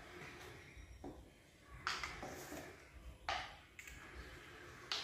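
Kitchen containers being picked up and handled on a countertop: four short clacks with brief rustles, about two seconds in, twice more past three seconds, and once near the end.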